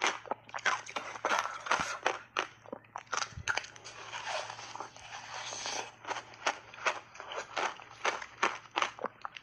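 Frozen ice block coated in passionfruit pulp being bitten and chewed in big bites: a rapid series of sharp, crisp crunches, merging into a denser continuous crunching for a couple of seconds in the middle.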